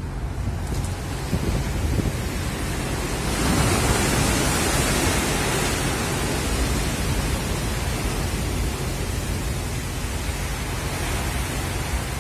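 Heavy sea rushing against the side of a bulk carrier, with wind on the microphone and a low steady rumble. About three seconds in a wave breaks over the deck rail in a louder surge of spray and washing water, easing again after about six seconds.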